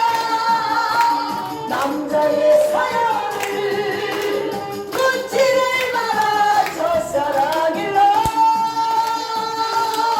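A song playing: a singer holding long, sliding notes over an instrumental backing.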